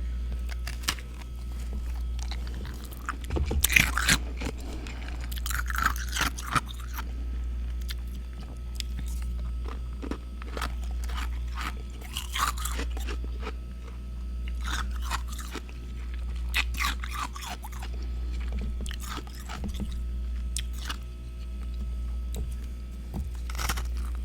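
Freezer frost being bitten and chewed close to the microphone: clusters of crisp crunches every few seconds, the loudest about four seconds in. A steady low hum runs underneath.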